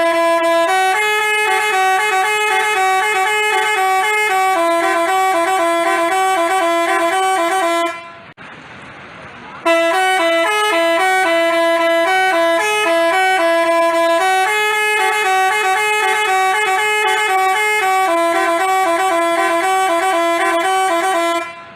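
Telolet basuri multi-tone bus horn playing a quick, stepping melody. It breaks off for about two seconds near the middle, then plays the tune again.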